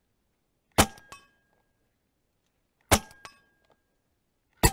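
Three shots from an Evanix Cloud semi-automatic PCP air rifle, about two seconds apart. Each is followed a moment later by the clank of the pellet hitting a distant steel gong, which rings briefly.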